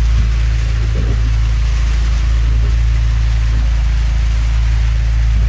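Rain and wind hissing steadily on a small boat's pilothouse during a night storm, over a steady low rumble.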